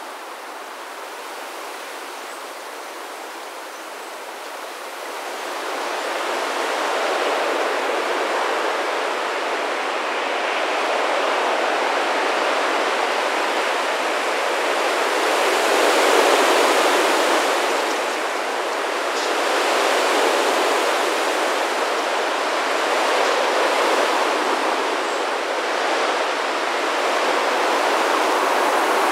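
Rushing whoosh of the wings of a dense flock of thousands of common starlings in a murmuration. It swells about five seconds in, then rises and falls in slow waves, loudest about halfway through.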